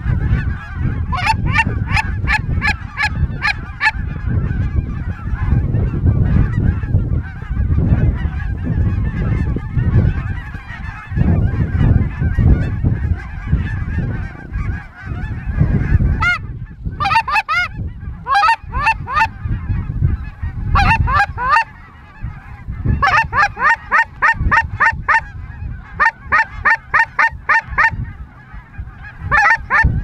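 Geese honking in quick runs of several honks a second, starting about a second in and coming thick through the second half, over a low rumble of wind on the microphone in the first half.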